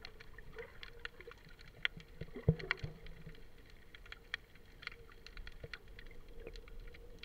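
Underwater sound picked up by a snorkeller's camera just below the surface: scattered sharp clicks and crackles over a faint steady hum. There is one louder knock about two and a half seconds in.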